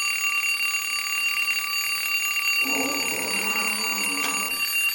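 A person snoring, one long rasping snore starting about two and a half seconds in and lasting about two seconds, over a steady high-pitched electronic whine of several tones.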